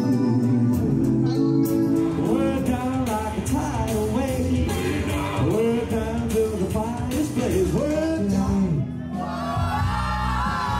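Music with singing: a pop song with a sung melody over bass and drums. The bass drops out near the end, leaving the higher voices.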